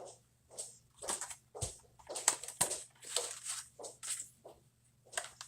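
Small parts and tools being handled on a workbench: irregular clicks, taps and scrapes, with a couple of sharper clicks about one and a half and two and a half seconds in.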